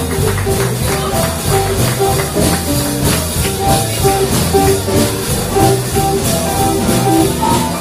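Live band playing with electric guitar and keyboard over a steady beat.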